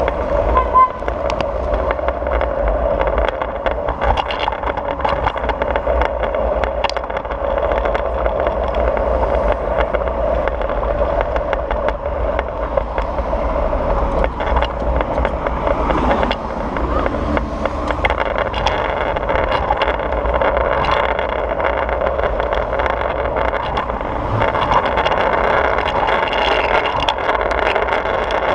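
Oxelo 7 kick scooter's wheels rolling steadily over paving slabs and asphalt, a continuous rumble with occasional light clicks.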